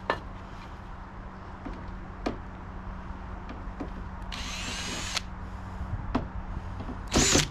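Power drill backing out screws: two short runs of the motor whine, rising and falling in pitch, one of about a second about four seconds in and a shorter, louder one near the end, with a few light knocks between.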